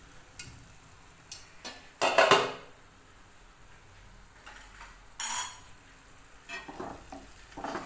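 Clatter of cookware as a glass lid with a metal knob is lifted off a pan of cooking besan pitla and set aside: two loud clanks, about two seconds in and about five seconds in, with lighter knocks between.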